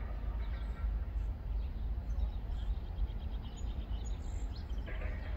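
Outdoor background noise: a steady low rumble with a few faint bird chirps.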